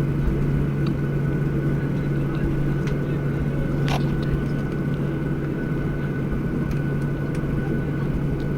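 Steady cabin noise inside a Boeing 737-700 on the ground after landing: its CFM56 jet engines and cabin air running as a steady low hum with a faint high whine. A single brief click about four seconds in.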